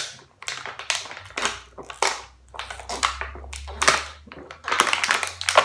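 Water being gulped from a thin plastic water bottle, the plastic crackling as it is squeezed and collapses, in quick repeated bursts about two or three a second.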